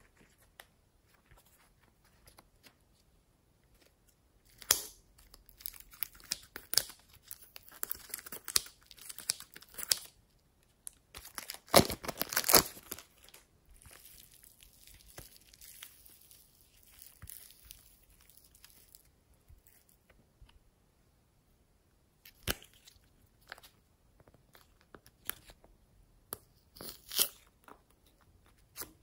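Hands stretching and squeezing slime, giving sticky crackling and tearing sounds in bursts of clicks. The loudest burst comes about twelve seconds in, and the bursts are separated by quiet stretches.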